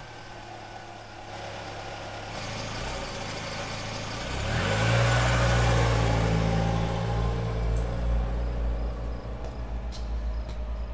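Car pulling away in an underground car park. The engine note rises about four seconds in, and tyre noise swells. The engine then settles into a steady, slightly pulsing hum, with a few faint clicks near the end.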